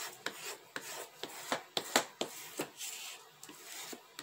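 Burnishing tool rubbed hard back and forth over paper freshly glued onto card: a dry scraping rasp in quick repeated strokes with small ticks, pressing the paper flat and squeezing the glue out at the edges.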